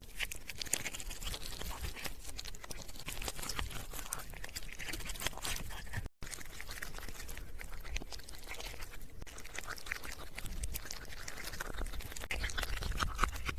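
A cat chewing and crunching a chicken wing drumette, close up, with a dense run of irregular crunches and wet clicks. The sound cuts out for an instant about six seconds in.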